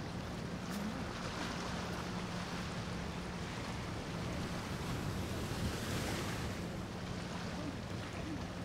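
Large motor yacht passing at cruising speed: a steady low engine hum under the hiss of water and its bow wash, with wind buffeting the microphone. The hiss swells briefly about six seconds in.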